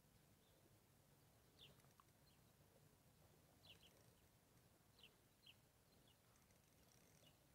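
Near silence, with a handful of faint, short, high chirps from small birds scattered through it.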